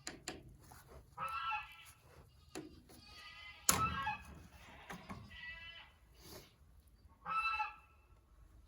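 A farm animal bleating in four short calls spread over several seconds. A sharp knock lands just before the second call.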